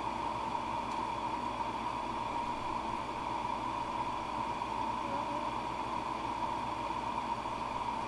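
Steady, even whooshing hum of electric fans running, with no breaks or changes.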